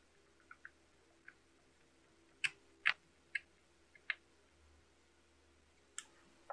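Hand screwdriver driving small screws into a 3D-printed plastic enclosure lid: a string of irregular sharp clicks and taps as the metal tip meets the screw heads and plastic, the loudest few in the middle.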